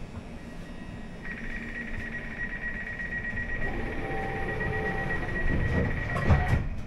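Elizabeth line Class 345 train's door-closing warning: a rapid high-pitched beeping that starts about a second in and runs until the doors thud shut near the end.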